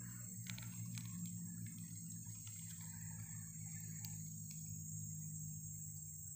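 Steady high-pitched chorus of forest insects such as crickets or cicadas, over a steady low hum, with a few faint clicks.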